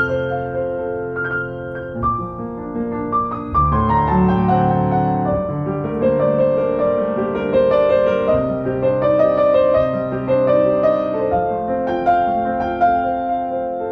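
Background piano music, with held notes and chords changing every second or two.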